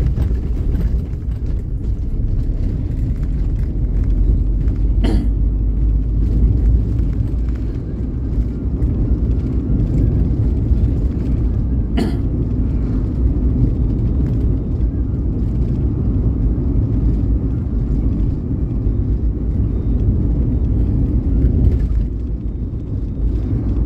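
Steady low rumble of a vehicle travelling along a road, with two brief sharp clicks, about five seconds in and again about seven seconds later.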